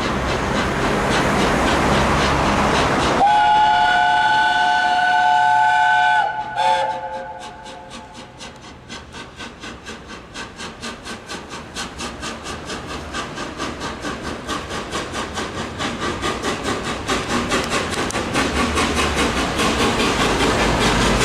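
A rushing noise cuts off abruptly. The whistle of the Peppercorn A1 4-6-2 steam locomotive Tornado then sounds as a steady chord for about three seconds, with a short second toot. After it come the locomotive's rhythmic exhaust beats as it works hard, growing steadily louder as it approaches.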